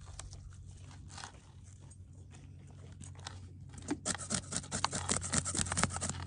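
A knife scraping scales off a whole fish on a plastic board. Faint scrapes at first, then from about four seconds in a quick run of loud scraping strokes, several a second.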